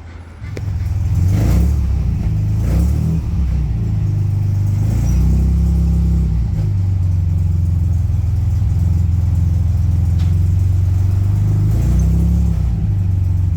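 The 1938 SS Jaguar 3½ Litre's straight-six engine starts running about half a second in. It revs a few times, then settles into a steady idle.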